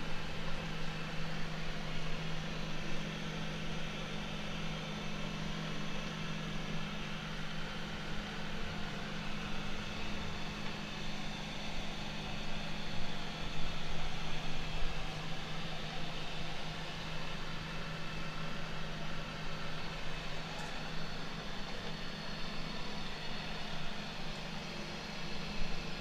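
Makita DRC300 robotic vacuum cleaner running as it drives over a dusty concrete floor: a steady motor hum with a low drone under an even fan hiss.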